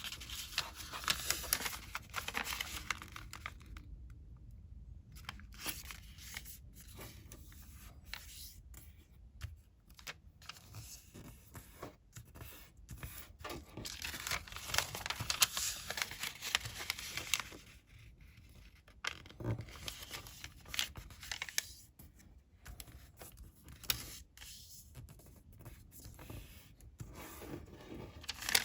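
A sheet of colored origami paper being folded and creased by hand: crinkling rustles and scraping creases in irregular bursts, with short pauses between folds.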